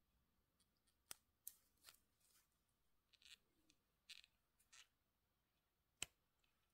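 Faint handling of a wristwatch in cloth gloves: a sharp click about a second in and another near the end, with short soft rustles of glove fabric against the watch and rubber strap between them.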